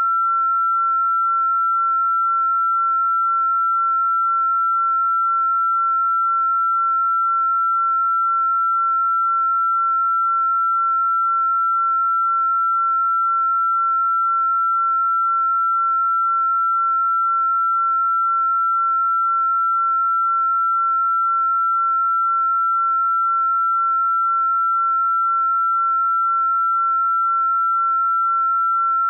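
A single pure sine-wave tone held at one steady, fairly high pitch, with no change in pitch or loudness: a synthesized sound-therapy 'frequency' tone.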